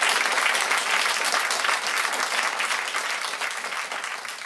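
Audience applauding, slowly fading away.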